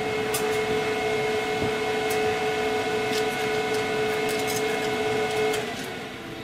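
Weber SmokeFire EX6 pellet grill's motor running with a steady hum, cutting out about five and a half seconds in, with a few light clicks from handling at the grill.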